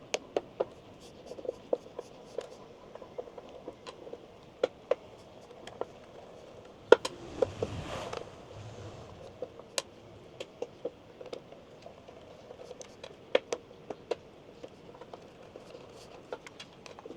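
Phillips screwdriver unscrewing the cable screws on an electric scooter's motor controller: scattered small metal clicks and taps, with a brief scraping rustle about seven seconds in.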